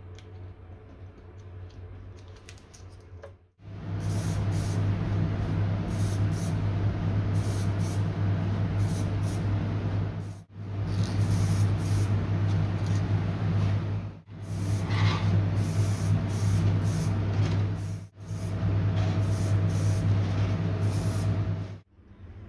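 Aerosol spray paint can hissing in repeated on-off bursts over a steady low hum, starting a few seconds in after faint bench handwork.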